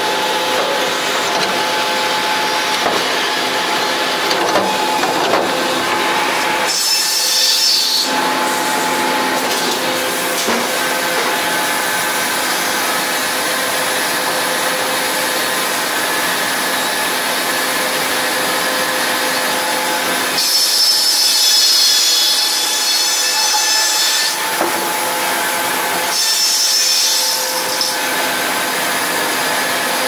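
Sawmill machinery running: a large circular head saw spinning with a steady whine while logs are fed through and sawn. A harsher high hiss takes over for a moment about a quarter of the way in, and twice more in the last third.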